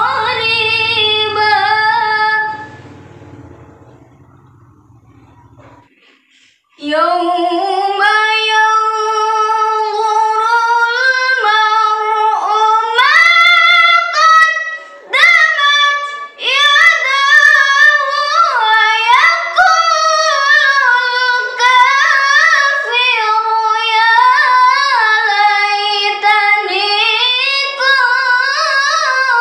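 A young woman's unaccompanied melodic Quran recitation (tilawah) in a high voice. One phrase ends and dies away soon after the start; after a pause of about four seconds she begins a long, ornamented phrase that winds up and down with brief breaths.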